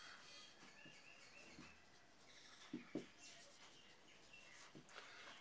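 Faint felt-tip marker strokes on a whiteboard, with small high squeaks from the tip about a second in and a couple of soft taps near the middle.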